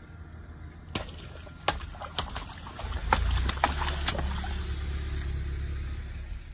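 Water balloons bursting one after another under a car tyre: about nine sharp pops between one and four seconds in. Water splashes and sloshes out over the pavement, with a low rumble from about three seconds on.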